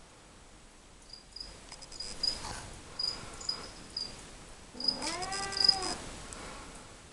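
A cat meows once, a single drawn-out call rising and falling in pitch about five seconds in, the loudest sound here. Around it, crickets chirp in short, high, repeated bursts.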